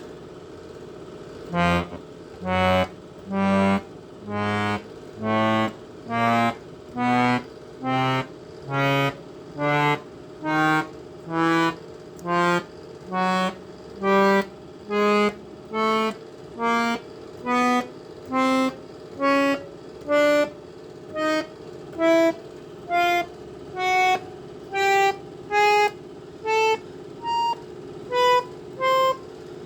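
Farfisa Sonette chord organ played one key at a time, short reedy, accordion-like notes a little under a second apart, climbing steadily up the keyboard. The organ's cooling fan hums steadily underneath.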